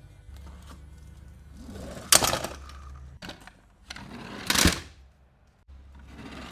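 Plastic toy trucks handled and pushed on a corrugated plastic mat: short bursts of rattling and scraping about every two and a half seconds, over a low steady hum.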